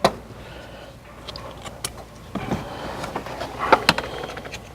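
Plastic interior trim clips being pressed into the car body: a sharp click at the start, scattered light clicks and taps, and a louder cluster of clicks and knocks near the end.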